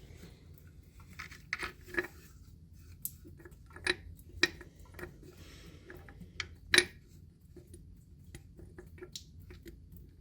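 Scattered clicks and light knocks of small valve parts being handled and fitted during reassembly of a Watts 009 backflow preventer's relief valve, the sharpest knock about two-thirds of the way through.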